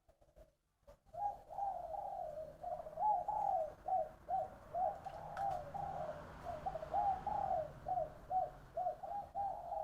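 Spotted dove cooing, a long run of short, repeated mellow notes starting about a second in. The bird is kept for its song style, which Vietnamese fanciers call 'ba ròng giọng đồng', a three-part, bronze-voiced coo.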